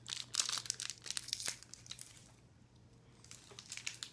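Mars bar's plastic wrapper crinkling as it is torn open by hand: a burst of crackling for the first second and a half, a short lull, then more crinkling near the end.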